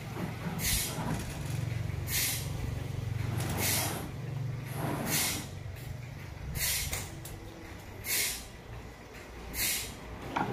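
A machine runs with a low steady hum, and a short hiss repeats at an even pace about every one and a half seconds, seven times.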